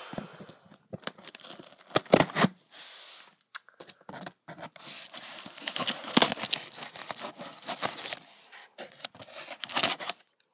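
A small blade cutting open a cardboard shipping box, in irregular scratchy strokes broken by sharp clicks.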